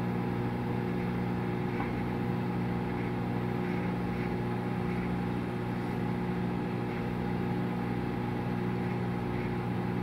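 Danby Designer microwave oven running: a steady hum made of several fixed tones. There is no sparking or crackling from the ceramic knife inside.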